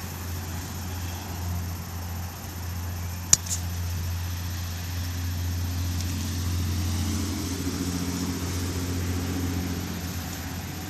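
Honda Sonic 125's single-cylinder four-stroke engine idling with a steady low hum that swells a little past the middle. One sharp click about three and a half seconds in.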